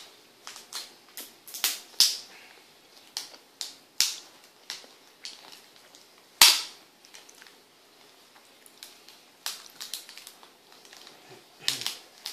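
Irregular sharp clicks, snaps and light crackles of hands handling a laptop LCD panel, freeing its taped display cable. The loudest snap comes about six seconds in, with a quick cluster near the end.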